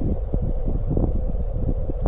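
Strong wind buffeting the microphone: a heavy low rumble with uneven gusty thumps.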